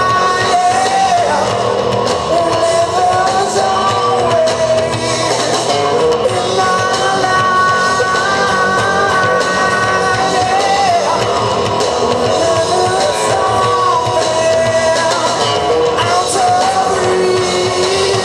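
Live rock band playing: a singer holds long, slightly bending notes over electric guitars and drums.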